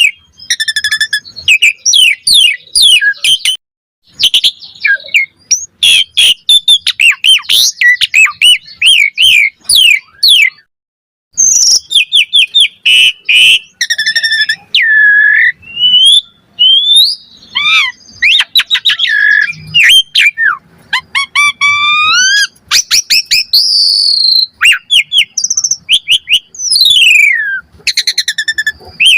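Asian pied starling (jalak suren) singing a long, varied song: fast chattering notes mixed with clear whistles and up-and-down glides, delivered in loud phrases with a couple of short pauses.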